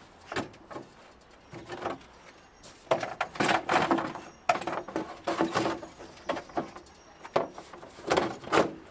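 Classic Mini replacement door skin being pushed and worked onto its door frame for a test fit: metal scraping and clunking against the frame in irregular bursts. The bursts are loudest through the middle and again briefly near the end.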